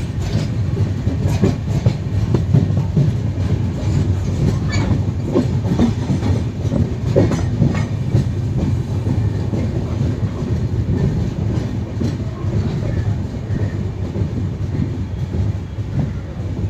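Passenger train running, heard from an open carriage doorway: a steady low rumble of wheels on rail, with sharp clicks of the wheels passing over rail joints, most frequent in the first half.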